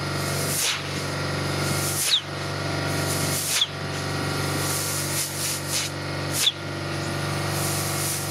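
Compressed air blowing the water out of a garden hose so it won't freeze: a steady hiss of air and water from the open end, over the steady hum of the air compressor. Three short, sharp spurts, each with a brief falling squeak, come about two, three and a half, and six and a half seconds in.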